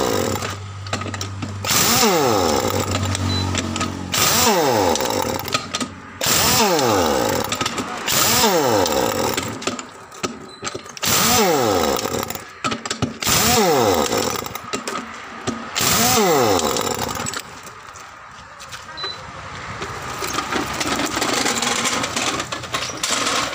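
Heavy air-powered impact wrench on a wheeled stand hammering at a tractor's rear wheel nuts in short bursts about every two seconds, its motor whine falling in pitch as it spins down after each burst. The bursts stop about two-thirds of the way through, leaving a quieter noise that swells toward the end.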